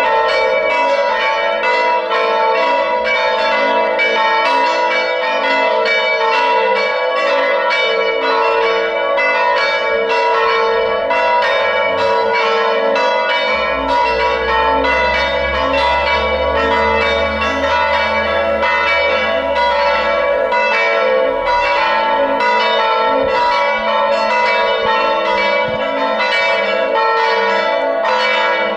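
Church bells ringing continuously in a fast, overlapping peal of repeated strikes, each tone ringing on under the next. A low rumble runs beneath the bells for several seconds around the middle.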